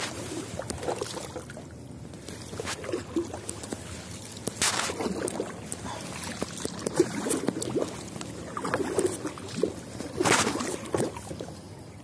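A wooden paddle dipping and pulling through lake water beside a small wooden boat: a few splashing strokes with dripping and sloshing between them, the loudest about four and a half and ten seconds in.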